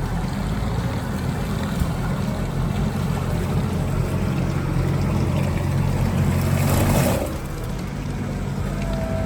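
Off-road vehicle engine running hard under load, building until about seven seconds in, with a spray of noise at its peak, then easing off suddenly.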